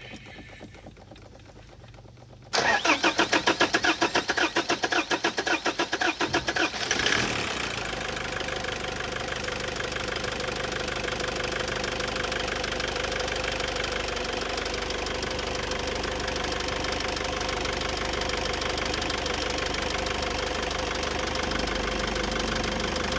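Engine cranked by its starter in a fast, even rhythm for about four and a half seconds, then firing at about seven seconds in and settling into a steady idle. This is a start attempt on an engine that had a hard-starting problem.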